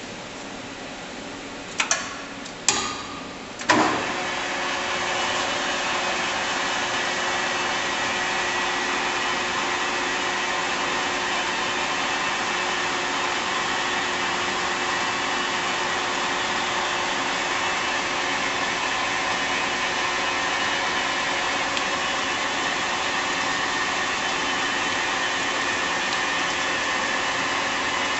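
Three sharp clicks, then the lathe's spindle and geared headstock start up and run steadily with a hum and several steady whining tones.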